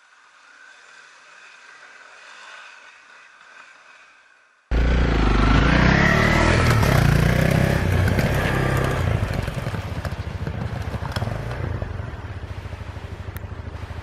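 Honda CRF250L's single-cylinder engine running as the bike rides over a gravel track, with tyre and scraping noise from the loose surface. It cuts in abruptly about five seconds in after a few seconds of faint sound, and settles into an even low pulsing in the last couple of seconds.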